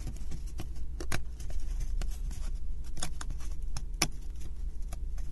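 Thin laser-cut plywood puzzle pieces being pressed out of their sheet by hand: a series of small wooden snaps and clicks, the loudest about a second in, at three seconds and at four seconds, over a steady low hum.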